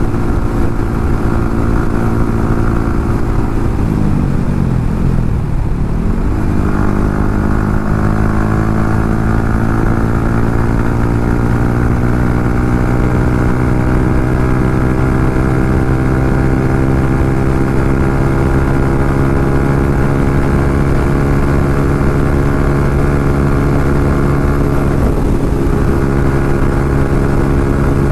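Yamaha MT-15's 155 cc single-cylinder engine running through an SC Project aftermarket exhaust, held at high revs while riding. The revs drop and climb back about four to six seconds in, with a smaller dip near the end.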